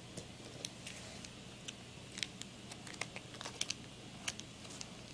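Trading cards being handled: faint, irregular light clicks and rustles as the cards are picked up and turned over.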